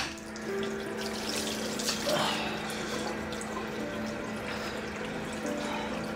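A sharp click right at the start, then a tap running into a sink while water is splashed onto a face, the splashing uneven and loudest about two seconds in.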